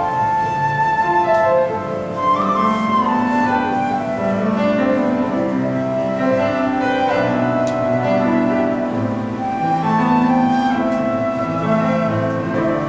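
A transverse flute and a violin playing a slow melody together in long held notes, over sustained lower accompanying notes.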